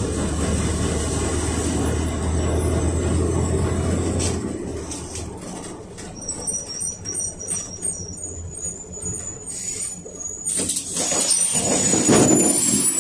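PAZ 32054 bus's ZMZ-5234 V8 engine running on LPG with a steady low hum that dies away as the bus slows to a stop. A rapid run of high beeps, about three a second, follows, then a loud hiss of air near the end as the pneumatic door opens.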